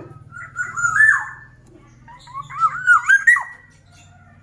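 Black-naped oriole (kepodang) singing two loud, fluty whistled phrases. The second phrase is a quick run of wavering up-and-down notes. A faint low steady hum lies underneath.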